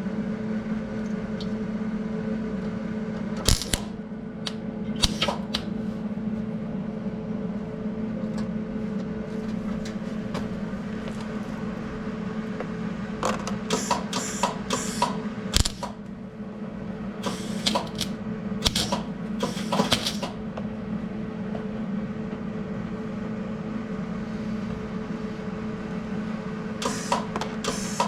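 MIG welder arc crackling and spitting in short bursts, about four seconds in, in a cluster through the middle, and again near the end, over a steady electrical hum. The welds are burning rather than holding, which the welder puts down to the shielding gas mixture and voltage probably being wrong.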